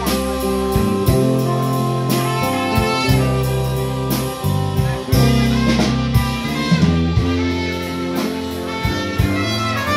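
Live band playing: a trumpet plays a lead line over electric bass and a drum kit keeping a steady cymbal beat.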